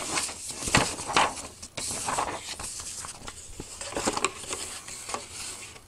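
Irregular rustling and clicking of a model kit's cardboard box and its packaging being handled, with a few sharp knocks of parts being moved.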